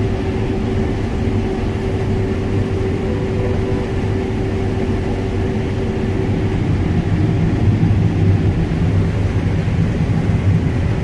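Combine harvester running steadily while harvesting corn, heard from inside the cab: a continuous engine and threshing drone, getting somewhat louder about seven seconds in.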